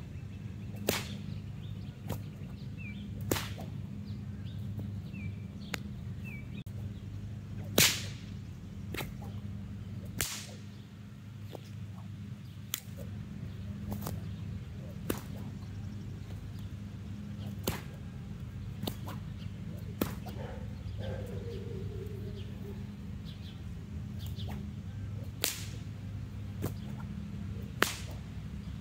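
A whip being swung and cracked: about a dozen sharp cracks at uneven intervals, mostly one to three seconds apart, some much louder than others, over a steady low hum.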